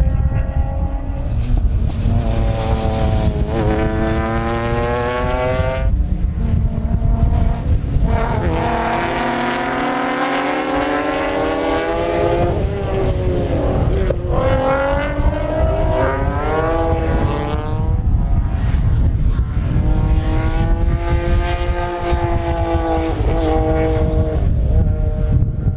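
Rally cars on a circuit accelerating hard, their engines climbing in pitch and dropping back at each upshift, several times as cars come and go. A constant heavy rumble of strong wind on the microphone runs underneath.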